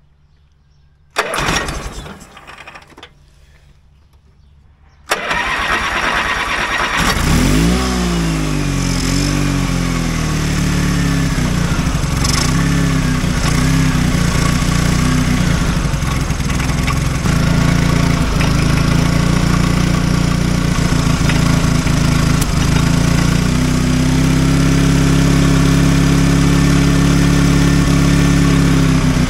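Honda HT3813 riding mower's engine being started on a freshly fitted replacement carburetor. After a brief noise and a few seconds of cranking, it catches about seven seconds in. Its speed surges up and down at first, then it settles into steady running, with a couple of shifts in engine speed later on.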